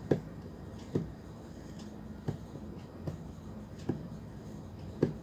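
Sharp clicks and knocks, about six in five seconds, unevenly spaced: tools and parts of an electric kettle being handled and worked at while taking it apart.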